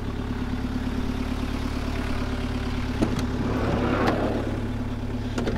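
Mitsubishi Delica L300 turbo diesel engine idling steadily. About three seconds in a click and a short rolling rumble ending in another click: the van's sliding side door being unlatched and slid open.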